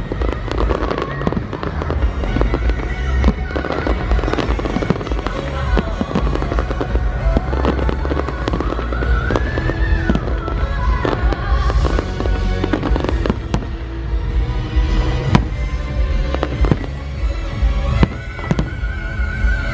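Fireworks display: many rapid bangs and crackles over a continuous low rumble, with music playing alongside.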